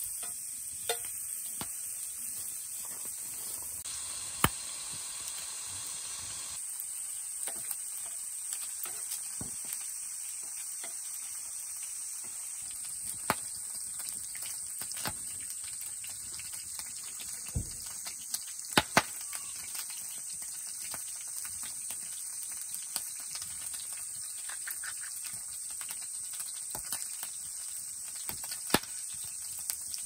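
Sliced meat sizzling and frying steadily in a frying pan over a wood fire, with scattered sharp clicks and knocks, as of utensils against the pan.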